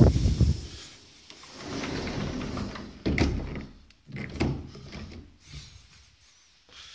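A door being opened and shut, with a few sudden knocks and rattles and some rustling.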